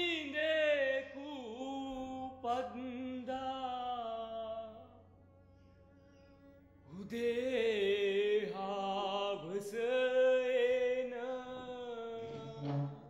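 A single voice singing a slow melody of long held notes with vibrato, in two phrases with a pause of about two seconds between them.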